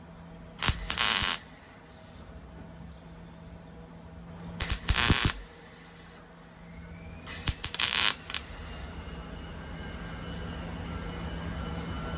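Welder laying three short tack welds on sheet-metal tailgate panel, each a crackling burst under a second long, over a steady low machine hum.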